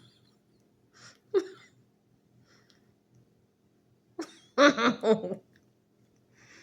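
Short nonverbal vocal sounds from a person: a few breaths early on, then a quick cluster of voiced bursts about four seconds in, over a faint steady hum.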